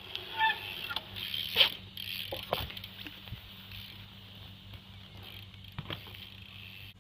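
BMX bike being ridden for tricks: scattered knocks and clatter, with a short squeak in the first second and a sharp knock about a second and a half in.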